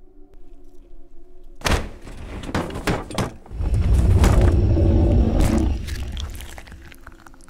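Horror sound design: a low droning tone, broken about 1.7 s in by a sudden loud hit and a string of sharp knocks. Then a creature's loud scream over a deep rumble runs from about 3.5 s to 6 s and fades away.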